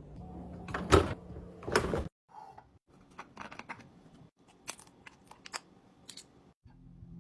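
Household containers and lids being handled: two loud knocks about one and two seconds in, then, after an abrupt cut, a run of small sharp clicks and taps.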